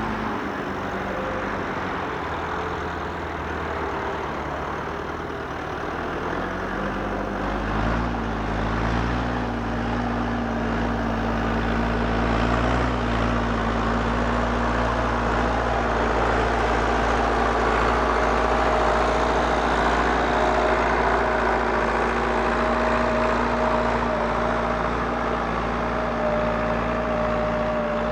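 Heavy-equipment diesel engine running steadily, then picking up revs and getting louder about eight seconds in. A thin, high steady whine joins it in the second half.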